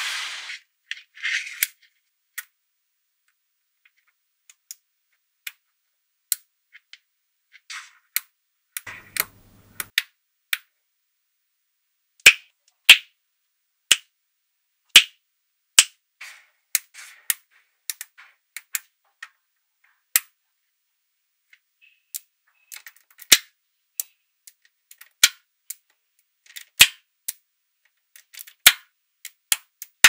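Small magnetic balls (neodymium ball magnets) clicking as they snap together: short, sharp clicks one at a time at irregular intervals, sparse at first and coming louder and more often in the second half.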